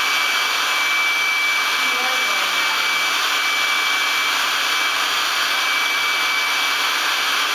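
Electric air-mattress pump running steadily as it inflates the mattress: an even rush of blown air with a thin, steady high whine from the motor.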